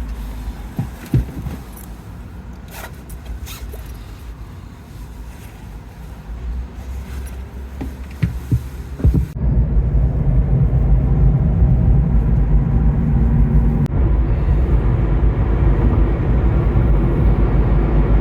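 Car driving: a steady low road and engine rumble with a few light clicks. About nine seconds in it changes abruptly to a much louder, heavier rumble.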